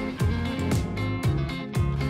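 Background instrumental music, with no speech over it.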